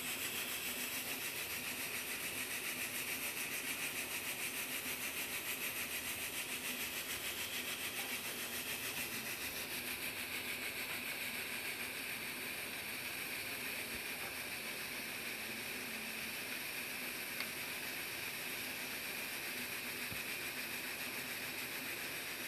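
Steady background hiss with a faint, fast, even pulsing, and a faint click or two.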